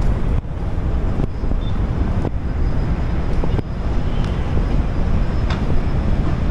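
Wind buffeting a handheld camera's microphone, a loud, uneven low rumble with a couple of brief dips.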